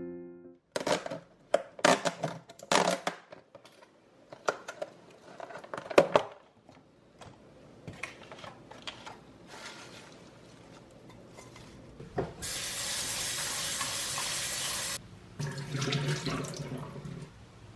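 Kitchen sink sounds: dishes and utensils knocking and clattering over the first six seconds, then a tap running steadily for about two and a half seconds.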